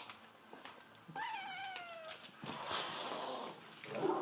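A domestic cat gives one drawn-out meow that falls in pitch, followed by about a second of harsh, noisy sound, as a dog closes in on it.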